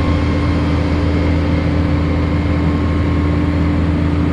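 Crane truck engine running steadily at constant speed with a low, even hum, as it powers the boom during a lift.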